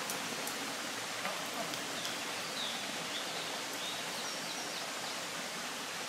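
Steady outdoor background noise, an even hiss with no clear source, with a few faint high chirps in the middle.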